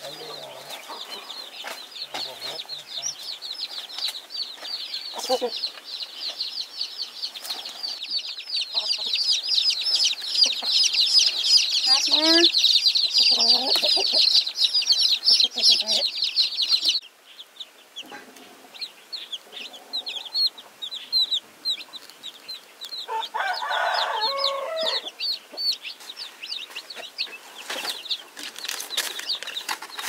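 A flock of chickens: a dense chorus of short high peeping calls, with a few lower, louder calls about twelve seconds in and again near 24 seconds. The peeping grows louder, cuts off suddenly a little past halfway, then returns thinner.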